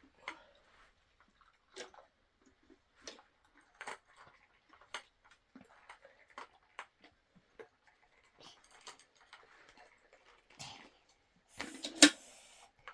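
Scattered small clicks and knocks at irregular intervals, with a louder clatter near the end.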